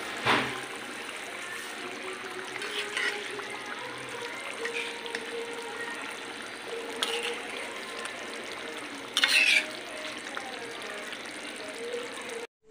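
Mustard-sauce hilsa curry bubbling and sizzling in a metal kadai, with a metal spatula stirring through the gravy and scraping the pan now and then; one louder scrape about nine seconds in.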